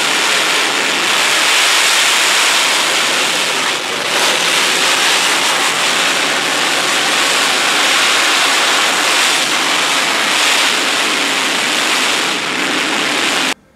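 General Electric J79 turbojet running with its afterburner lit: a loud, steady roar of jet exhaust noise, which cuts off suddenly near the end.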